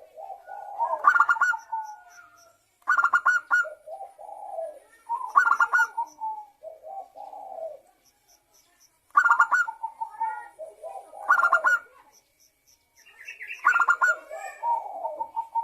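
Zebra dove (perkutut) cooing: about seven phrases in a row, each opening with a fast rattling run of notes and trailing off into lower, softer coos.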